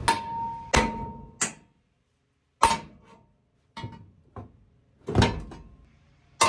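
Hammer blows on a steel square-tube body mount beam, knocking the cut beam loose from the car's floor. There are about eight separate strikes, irregularly spaced, and several ring briefly with a metallic tone.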